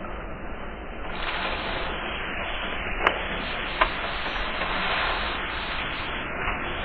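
A landing craft and an armoured vehicle running as the vehicle drives down the ramp into shallow surf, a steady noisy rumble mixed with splashing water. Two sharp clicks come a little after three seconds in and again just under a second later.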